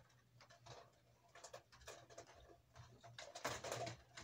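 Comforter being flipped and shaken out over a bed: fabric rustling and swishing in irregular bursts, loudest about three and a half seconds in.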